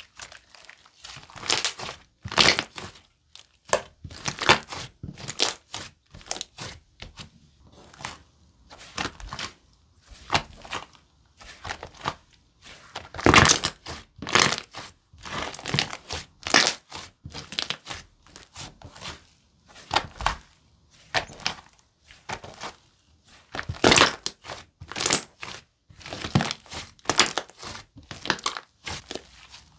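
A thick, clay-mixed cookie-dough slime being squeezed, stretched and poked by hand, giving irregular crackly pops and squishes with short pauses between them. The loudest pops come about halfway through and again near the end.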